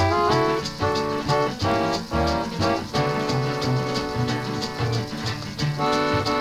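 A 78 rpm record playing an instrumental passage with no singing: a small band with a steady beat.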